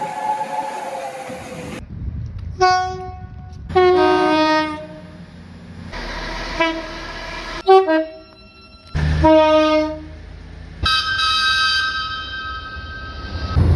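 A string of train horn blasts from different trains, cut together. It opens with the end of a held chord-like whistle, followed by about five shorter horn blasts, some stepping down from a higher note to a lower one. Near the end a higher-pitched horn is held for about three seconds.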